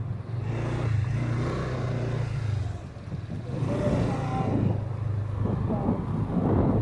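Motorcycle engine running steadily while being ridden, dipping for a moment about three seconds in and picking up again.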